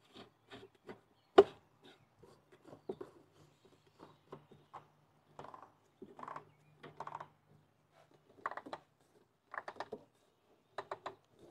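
Plastic oil filter housing cap on a 2000 Mercedes-Benz E430 being turned on by hand: a string of light clicks and rubbing scrapes, with one sharper knock about a second and a half in.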